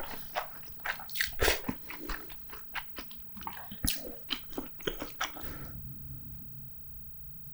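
Close-miked chewing and biting, with many quick wet mouth clicks, which die away about five and a half seconds in.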